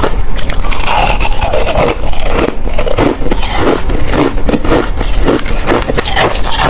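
Ice being bitten and chewed close to the microphone: a rapid, continuous run of loud crunches and cracks.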